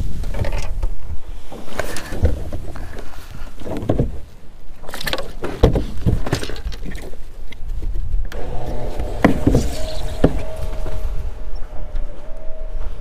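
Knocks and clatter of handling on an aluminium boat's deck and hatch lid while a crappie is put away, over wind rumbling on the microphone. A steady whine starts about two thirds of the way in and carries on.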